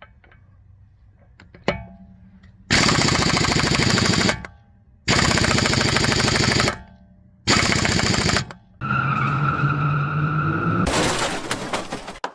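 Impact wrench hammering on a car wheel's lug nut in three bursts of about a second and a half each, with short pauses between. A steadier whirring with a held tone follows for about two seconds, then a loud rush of noise.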